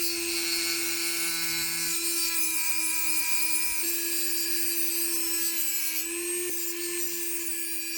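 A small electric power tool running steadily at high speed with a hissing, scouring noise as it cleans rust from the threads around a skid steer's engine-oil drain plug. Its pitch shifts slightly a few times as it is pressed on.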